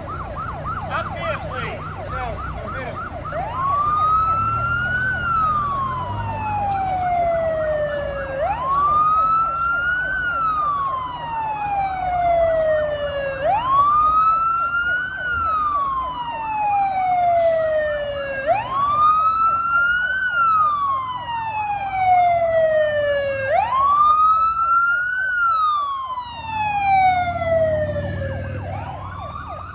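Emergency vehicle siren in a slow wail, rising for about two seconds and falling for about three, repeating every five seconds, six times over. A faster yelping siren overlaps it in the first few seconds, with a low vehicle rumble underneath.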